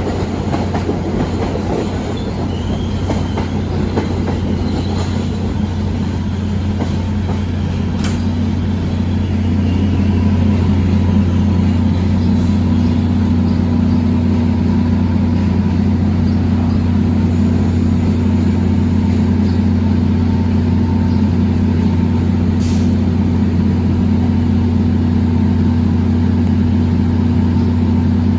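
A train at the station: rough rolling and wheel noise for the first several seconds, then a steady low hum as it stands or creeps.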